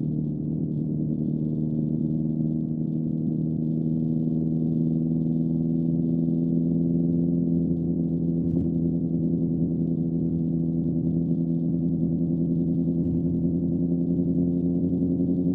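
Motorcycle engine running at a steady speed, its pitch creeping up slowly. One short sharp click about eight and a half seconds in.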